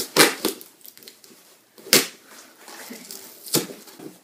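A letter opener jabbing and tearing into a cardboard package, giving a few sharp crunching rips with rustling of the cardboard between. The loudest rips come right at the start and about two seconds in.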